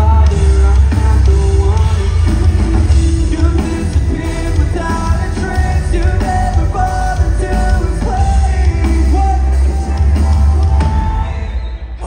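Live rock band playing loud amplified music in an arena: drums, bass and electric guitars with a singer's vocals over heavy bass. The level dips near the end.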